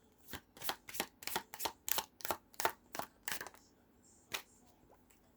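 Tarot cards being shuffled by hand: a quick run of crisp card snaps, about four or five a second, stopping after about three seconds.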